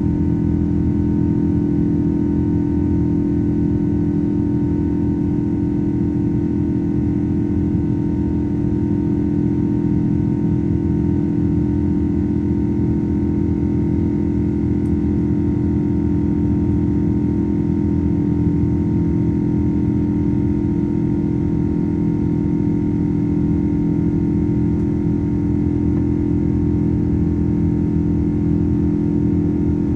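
Boeing 777-200's Pratt & Whitney PW4077 turbofans at climb thrust, heard inside the cabin: a loud, steady drone made of many steady tones over a low rush, the multi-tone buzzsaw of the engine fans.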